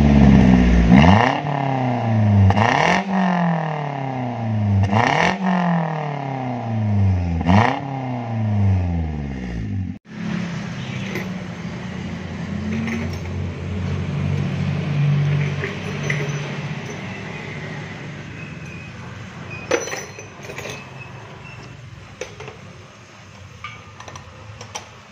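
Toyota Avanza engine revved about four times through a newly fitted aftermarket racing muffler, with the stock resonator kept; each time the revs climb quickly and fall away slowly. After a cut about ten seconds in, a quieter steady hiss with a low hum and a few clicks follows.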